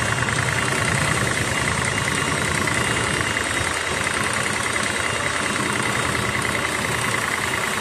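Belt-driven power-sprayer plunger pump running steadily at speed, with a fast, even mechanical pulsing, just after its V-packings were replaced and with no more leaking.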